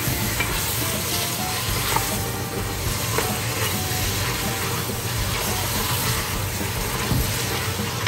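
Meat and onions sizzling as they brown in a stainless steel pot for qabuli pulao, stirred with a wooden spoon that now and then scrapes the pot.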